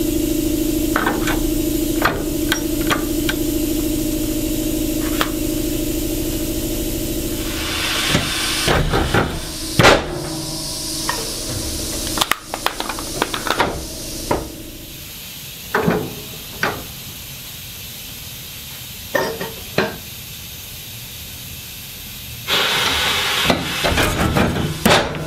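Powered sheet-metal shear cutting stainless steel sheet: a steady motor hum, then loud metallic clanks and knocks as the blade falls and the sheets are handled. A hissing burst comes near the end.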